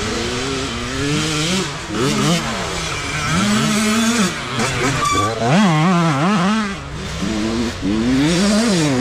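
Youth dirt bike engines revving, the pitch rising and falling again and again as the riders work the throttle and shift along the trail.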